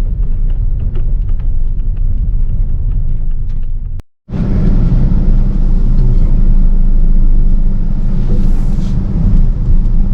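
Steady low road-and-engine rumble of a moving car, as heard inside the cabin. It cuts off abruptly for a moment about four seconds in, then carries on a little louder.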